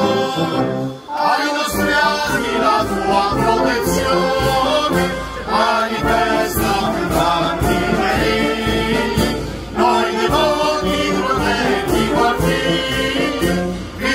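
Music: a song with a singing voice over instruments and a steady beat.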